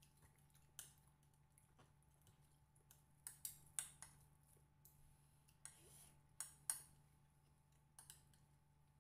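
Quiet eating sounds: about ten light, scattered clicks and taps of a fork against plates and food being picked up, over a faint steady low hum.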